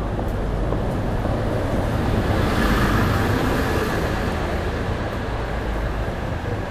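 Street traffic with one vehicle passing close by: its noise swells to a peak about three seconds in and then fades, over a steady low rumble.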